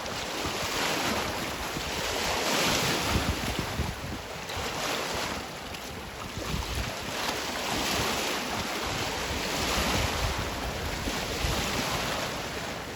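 Wind gusting over the microphone at a lakeshore: a steady rushing noise with a low rumble, swelling and easing every couple of seconds.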